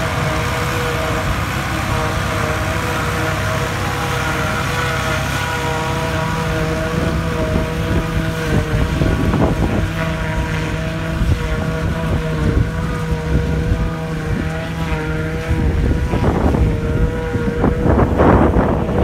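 Massey Ferguson tractor engines and a JF trailed forage harvester running steadily, with a steady machine hum, as chopped grass is blown into a silage trailer. Wind gusts buffet the microphone near the end.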